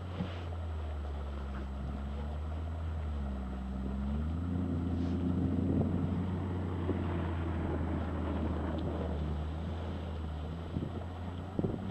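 An engine idling steadily, its pitch rising for a couple of seconds about four seconds in and then falling back to idle.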